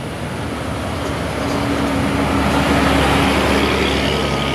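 Intercity bus engine climbing past on an uphill grade, getting louder to a peak about three seconds in over steady road traffic.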